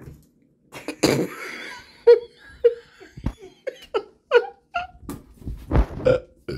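A person laughing in short, repeated bursts, starting with a breathy outburst about a second in.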